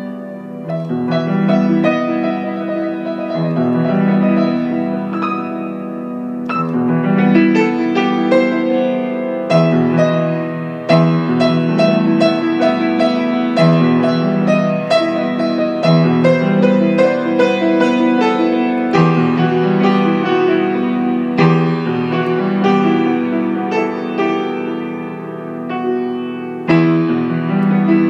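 Piano music: a run of quick melody notes over held low chords.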